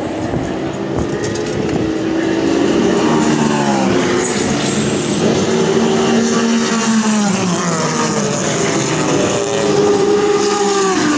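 Racing car engines running at high revs, their pitch sweeping down about three times, as cars pass on the circuit.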